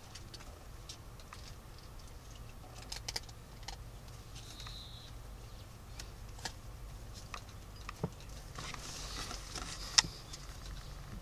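Young kittens scrambling about on a towel in a cardboard box: scattered small ticks, scratches and rustles from their claws and paws. A sharp tick about ten seconds in is the loudest.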